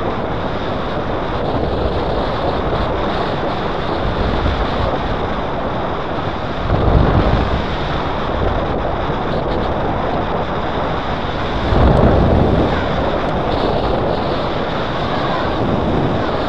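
Steady rush of airflow buffeting the microphone of a paraglider pilot's camera in flight, swelling louder twice, about midway and again about three quarters of the way through.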